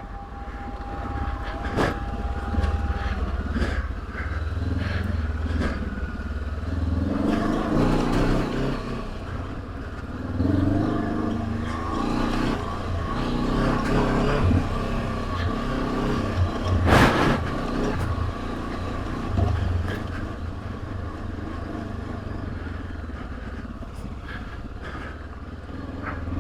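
Honda CB500X's parallel-twin engine running as the bike is ridden over a rough trail, revs rising and falling with the throttle, with a few sharp knocks, the loudest about two-thirds of the way through.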